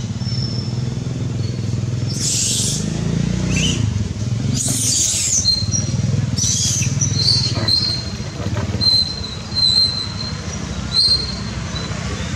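A steady low engine hum, with three brief loud hisses in the first half and several short high squeaks in the second half.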